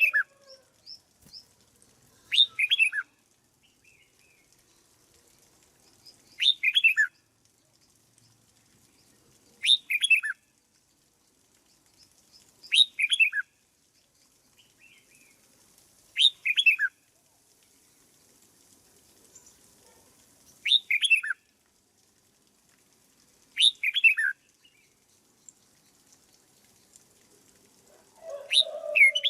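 Red-whiskered bulbul singing short, quick phrases of a few falling notes, one phrase every three to four seconds.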